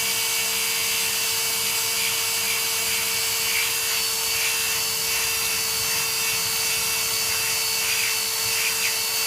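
Handheld power tool running steadily with a high whine, buffing the rubber around a tyre puncture smooth so the patch glue will hold, with small irregular scuffs as it works the rubber.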